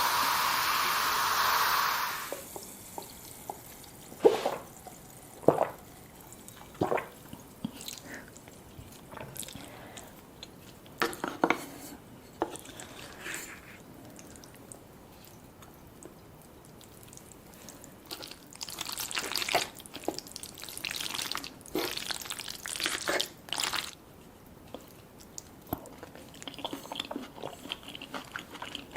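Eating and table sounds from a mukbang of black bean noodles, sweet and sour pork and dumplings. A loud steady hiss stops about two seconds in. Then come scattered sharp taps and clicks of utensils on dishes and several wet, sloppy bursts, and near the end a run of crunchy biting and chewing.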